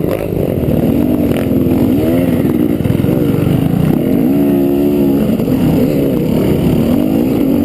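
Trail bike engine revving up and down under riding, its pitch rising and falling again and again and held steady for about a second midway.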